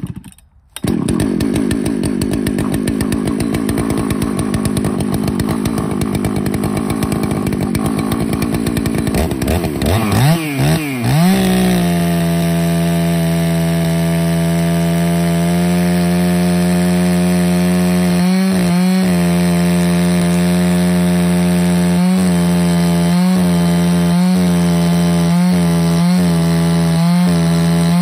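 Ported Husqvarna 288XP chainsaw, a big two-stroke, started with a pull and catching within a second, then idling roughly. About ten seconds in it revs up to full throttle and runs steady under load as the bar rips lengthwise through a white oak log on an Alaskan chainsaw mill.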